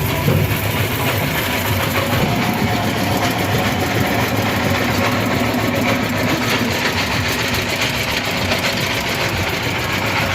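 An engine running steadily, with a low hum under a dense, even noise.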